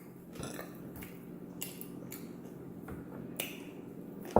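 Close-up eating sounds from fried chicken wings being chewed: a few sharp mouth clicks and smacks, roughly a second apart, with the loudest near the end, over a faint steady hum.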